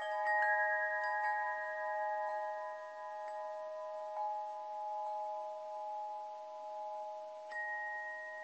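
Bell-like chimes struck now and then, each note ringing on long and overlapping the others, so that several steady pitches sound together; fresh strikes come at the start, a few in the first seconds, about four seconds in, and near the end.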